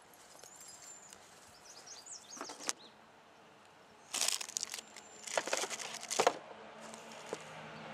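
Bursts of rustling and crinkling, as of fireworks and their wrappers being handled, with a sharper knock about six seconds in. A low steady hum sets in about a second before the end.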